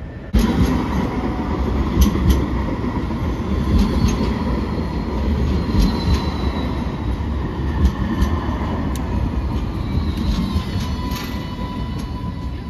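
Alstom Citadis X05 light rail tram running close past and slowing into a stop: a steady rumble of steel wheels on rail, with a whine that slides down in pitch and scattered sharp clicks. The sound begins abruptly just after the start.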